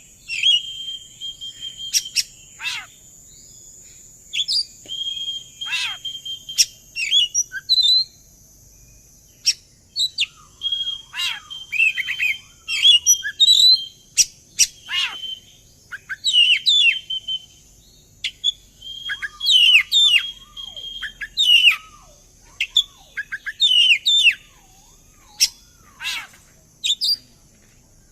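Oriental magpie-robin (kacer) in full fighting song (narung): a fast, varied run of held whistles, sharp chirps and down-slurred notes with short pauses, over a faint steady high hiss. This aggressive male song is used as a lure to provoke other kacer into singing.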